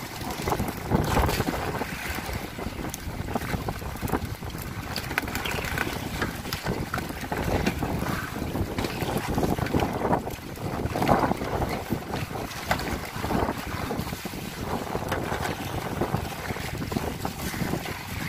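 Wind buffeting the microphone on an open boat at sea: a rushing noise that swells and dips, with the sea in the background.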